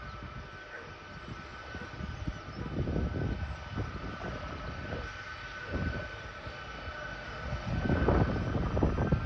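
Boeing C-17 Globemaster III's four turbofan jet engines running: a steady high whine over an uneven low rumble that grows louder about eight seconds in.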